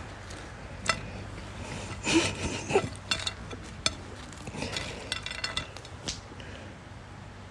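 Irregular light clinks and knocks of hard objects, in scattered clusters that are busiest around the middle.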